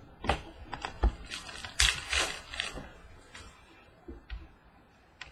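Football trading cards being flipped and slid through the hands one after another: a quick run of sharp clicks and swishes, busiest in the first three seconds, then fewer and fainter.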